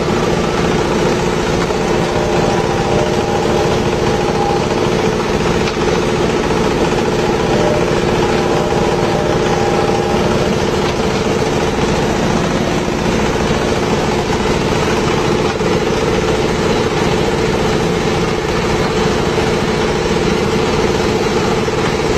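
Coconut husk peeling machine running steadily: an even, loud mechanical drone with a constant hum.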